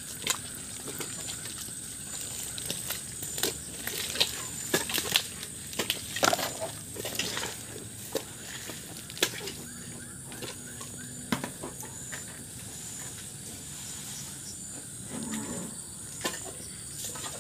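Cattle mooing: a low moo held for about a second about ten seconds in, and a shorter one near the end. Scattered footsteps and sharp knocks on muddy ground around it, the loudest a few seconds in.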